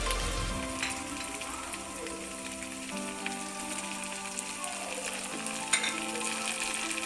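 Oil sizzling in a nonstick wok as fried onions and spice pastes cook, with soft background music of held notes. A sharp knock comes near the end.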